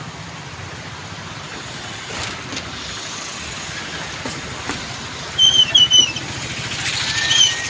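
Steady noise of traffic on the bridge mixed with rushing floodwater. A little over five seconds in comes a quick run of short, high, wavering beeps, and a few more near the end.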